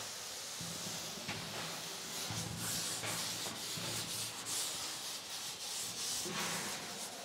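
A cloth wiping chalk off a chalkboard: repeated scratchy rubbing strokes, growing louder about two seconds in.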